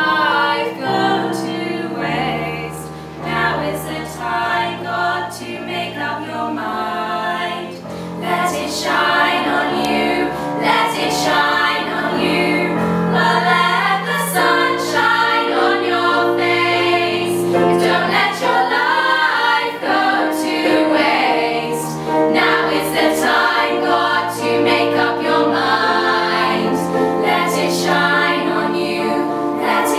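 Music: a song with choir-like and female singing over a steady beat.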